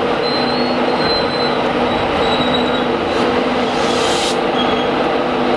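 Class 91 electric locomotive at close range, giving a steady drone with several low steady tones and thin, high wheel squeals. A short hiss of about a second comes about three seconds in.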